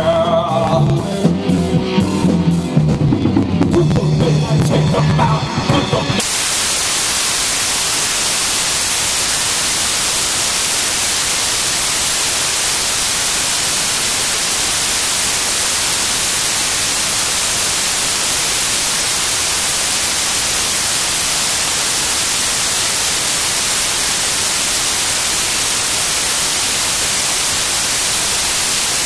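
A song with drums cuts off suddenly about six seconds in and gives way to a steady, loud static hiss, even from low to high.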